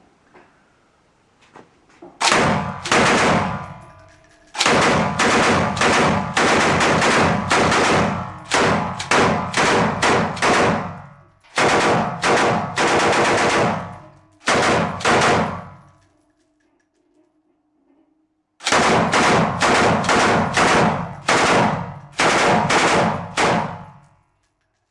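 Machine gun firing a series of short bursts of rapid shots, each burst trailing off as it rings out. A pause of a few seconds comes before a final string of bursts.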